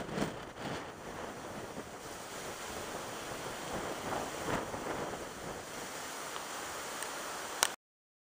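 Strong wind buffeting the microphone as a steady rushing noise that swells a little at times, cutting off suddenly with a click near the end.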